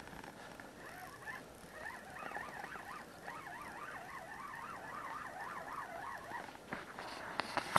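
Spinning reel being cranked on a lure retrieve: a whirring whine from the reel's gears that wavers up and down in pitch over and over with the turns of the handle. A few sharp clicks near the end.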